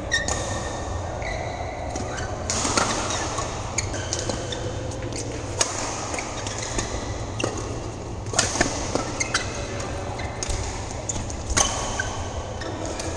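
Badminton rackets striking shuttlecocks in rallies: sharp cracks, irregularly spaced about a second apart, with short squeaks of shoes on the court mat and a steady low hum underneath.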